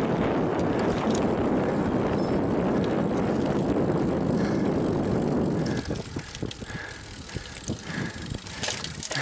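Bicycle ride noise, steady rushing wind and tyre rumble, for about the first six seconds. It then drops away abruptly to a quieter background with scattered light clicks and ticks.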